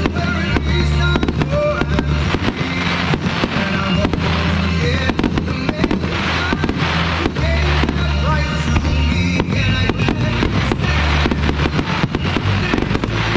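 Fireworks going off in rapid, irregular bursts and crackles, over music with a steady bass line.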